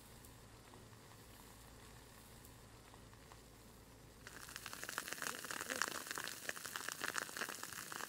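Burning grass and brush crackling, a dense run of sharp snaps and pops that starts about halfway through and cuts off at the end. Before it there is only a faint steady hiss.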